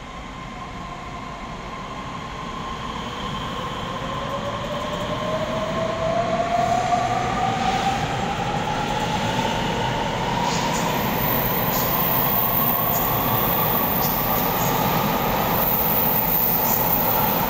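Taiwan Railways EMU3000 electric multiple unit pulling out past the platform and accelerating, growing louder. Its traction motors give a whine that climbs steadily in pitch as the train gathers speed, over the rumble of the cars, with scattered light clicks from about six seconds in.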